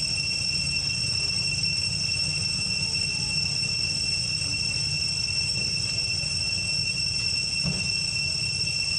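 Steady, high-pitched insect drone, typical of cicadas in a tropical forest, holding two even shrill pitches throughout, over a low steady rumble.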